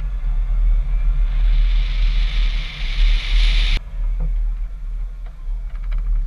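Road and wind noise from a Chevy Suburban driving, picked up by a camera mounted outside on the vehicle: a heavy low rumble of wind on the microphone under a hiss that grows louder over about three seconds and cuts off suddenly about halfway through. After that, a quieter rumble with a few light ticks near the end.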